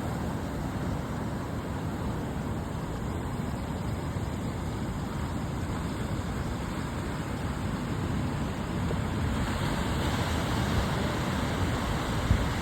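Sea surf with a steady low rumble. About nine or ten seconds in, a wave washes in and adds a rising hiss.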